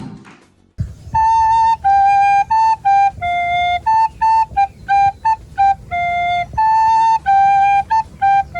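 A flute playing a simple beginner's tune on only three notes, B, A and G, mixing short notes with longer held ones. The tune starts about a second in.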